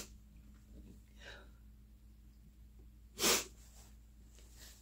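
A crying woman's single short, loud sniffle about three seconds in, with faint breathing before it.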